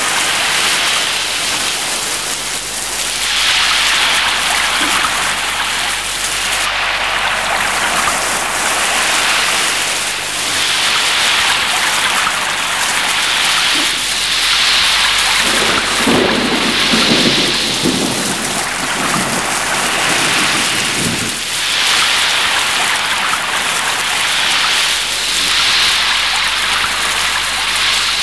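Heavy wind-driven rain pouring onto tiled roofs and the street, a steady downpour that surges every few seconds with the gusts. About halfway through there is a low rumble lasting several seconds.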